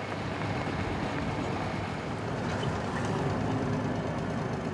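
Loaded log truck's engine and cab running steadily, heard from inside the cab as it rolls down a rough dirt forest track.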